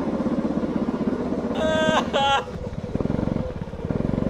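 Go-kart engine running hard on track, with two short high-pitched tones partway through. The engine eases off about three seconds in and picks up again near the end.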